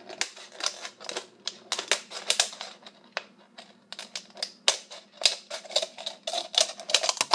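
Scissors cutting through a thin plastic water bottle: a quick, irregular run of sharp snips and crackles of the plastic, several a second.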